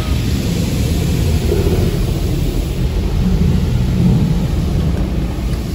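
Automatic car wash water jets spraying onto the car's windshield and roof, heard from inside the cabin as a loud, steady rushing with a deep rumble beneath it.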